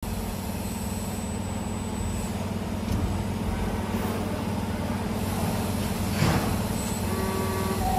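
CNC camless wire forming machine running with a steady low hum as its tools feed and bend flat copper wire, with a few short clicks and a brief burst of noise about six seconds in. Faint steady whining tones come in near the end.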